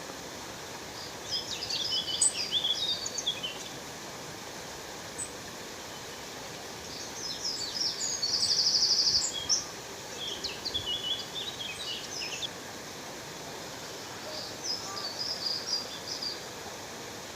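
Steady rush of a waterfall with songbirds singing over it in three bouts of high chirps. The middle bout is the loudest and includes a fast, even trill lasting about a second.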